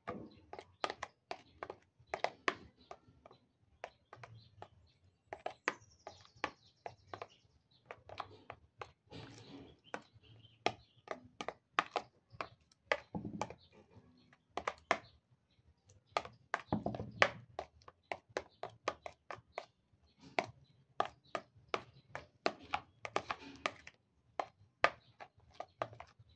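A spoon stirring and mashing thick cream in a plastic bowl: irregular clicks and knocks of the spoon against the bowl, a few a second, with soft wet squelches of the cream.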